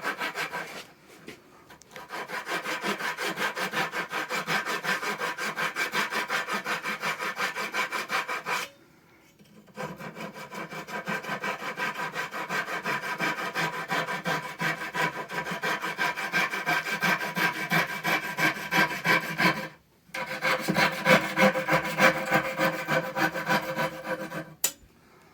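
Hand saw cutting kerfs across a wooden board for a notch, in three steady runs of strokes with short breaks about a second, nine seconds and twenty seconds in.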